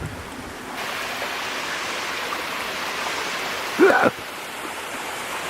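Steady rush of flowing creek water, growing louder about a second in, with a brief vocal exclamation about four seconds in.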